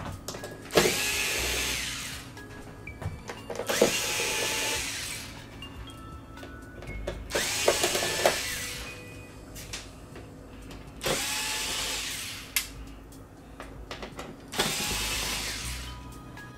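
Cordless electric screwdriver running in five short bursts, each about one and a half seconds long, backing out the small Phillips screws that hold a TV's outer bezel.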